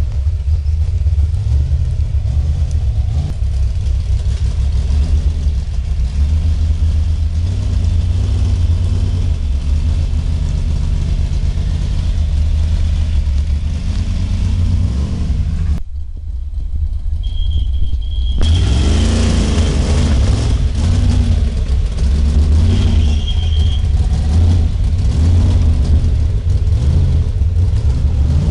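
Off-road pickup truck's engine running hard as it crawls up a rough wooded trail, the revs rising and falling under load.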